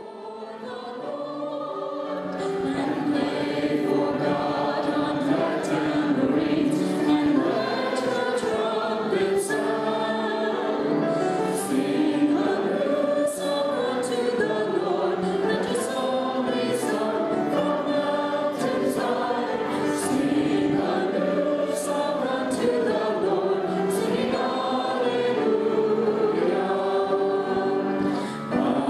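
A choir singing a sacred hymn, several voices in sustained chords, fading in over the first couple of seconds.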